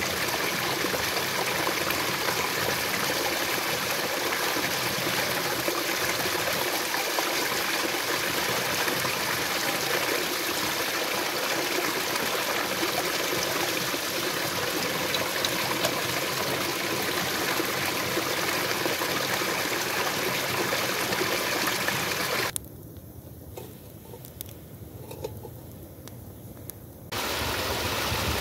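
Water from a small spring-fed waterfall splashing steadily onto rocks. It drops much quieter for several seconds near the end, then a small stream rushing over stones comes in loud.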